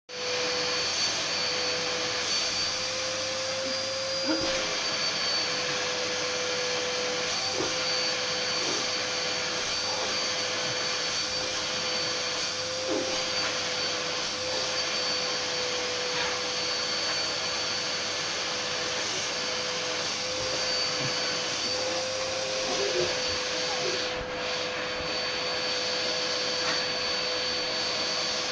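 Vacuum cleaner running steadily, a constant motor whine over an even rushing noise, with a few faint brief sounds over it.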